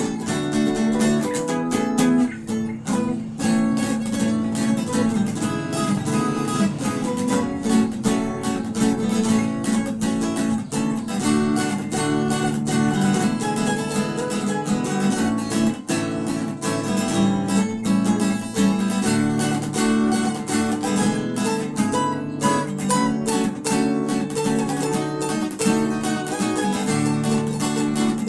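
Solo acoustic guitar playing a fingerstyle instrumental, a busy run of plucked melody notes over bass notes and strums, without pause.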